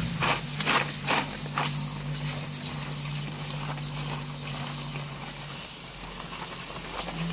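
Running tap water pouring onto sliced jengkol (dogfruit) in a plastic colander, steady splashing while a hand stirs and rubs the wet slices, with a few sharper splashes and clatters in the first second or so. A steady low hum runs underneath and stops about two-thirds of the way through.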